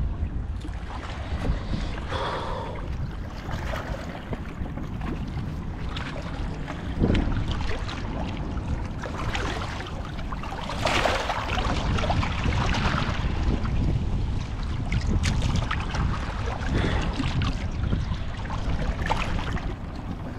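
Wind buffeting the microphone over small waves sloshing against shoreline rocks, with a splash about eleven seconds in as a small fish is let go into the shallow water.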